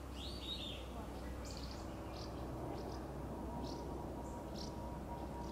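Small birds chirping in short, scattered high calls over a steady low outdoor rumble.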